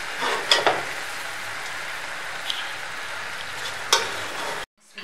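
A metal spoon stirring and scraping through cooked biryani rice in a large aluminium pot: a steady rustling hiss with a few sharp clinks of spoon on pot. It cuts off abruptly near the end.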